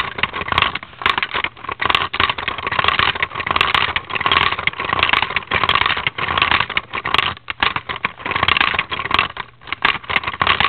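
Hand-cranked Lego marble pump running: a continuous, rapid plastic clatter of Lego gears, cam and sliding pieces, with marbles clicking as they are pushed up the stack.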